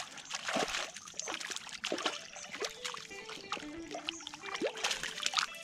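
Water at the pond's edge splashing lightly and trickling in many small, irregular strokes, with faint music underneath.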